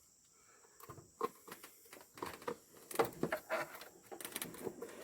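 Motor oil glugging out of a quart bottle into an engine's oil fill, a run of irregular gurgles.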